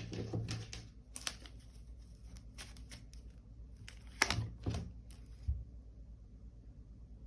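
Tarot cards being handled: rustling and flicking strokes of the deck being shuffled and cards drawn, with a louder flurry about four seconds in and a soft thud shortly after.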